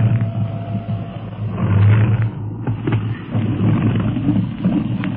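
Radio-drama sound effect of a propeller plane's engine droning as the plane comes in to land, swelling twice and easing, on a 1930s recording with a dull, muffled top end.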